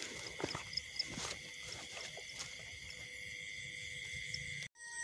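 Steady high chirring of night insects, with a few soft clicks and rustles in the first second and a half. It breaks off abruptly near the end.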